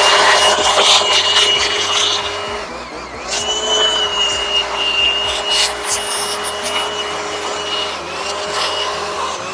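Small two-stroke engine running steadily with a high whine and hiss, easing off briefly about three seconds in and again near eight seconds.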